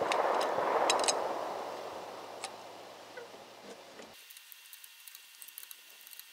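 A few sharp metallic clicks of a lug wrench working the lug nuts on a Jeep Cherokee's front wheel. Under them a loud rushing noise fades away over the first three seconds, and the remaining background cuts out abruptly about four seconds in.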